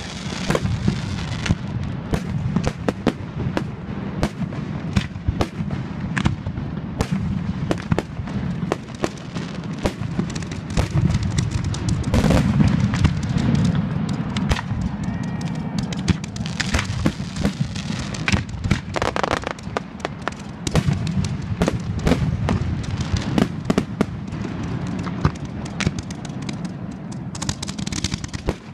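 Fireworks display: aerial shells bursting in a continuous barrage of bangs and crackling stars, one after another without a break.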